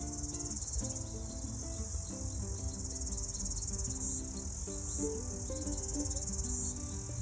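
Insects chirring in a steady high-pitched chorus, with a fast pulsing texture, over quiet background music playing a melody.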